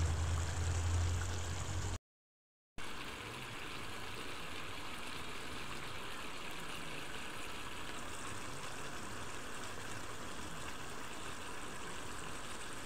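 Chicken adobo simmering in its sauce in a wide pan: a steady, even bubbling hiss. A low hum runs under the first two seconds, then the sound drops out for under a second and the hiss resumes unchanged.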